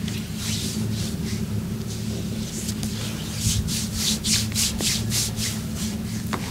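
Hands rubbing briskly over skin in a massage: soft rubbing at first, then from about three seconds in a run of quick strokes, about four a second, for roughly two seconds. A steady low hum runs underneath.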